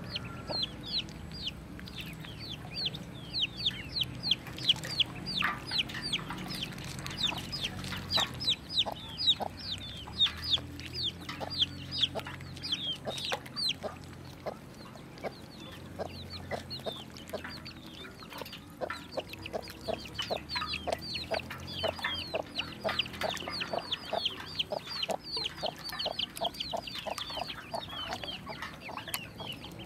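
A group of ducklings peeping continuously: many short, high, downward-sliding peeps overlapping, several a second.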